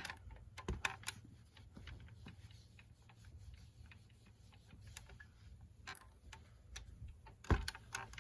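Scattered light clicks and taps at irregular intervals, with one louder tap about seven and a half seconds in, from hands working fabric and elastic on a tabletop. A low steady hum runs underneath.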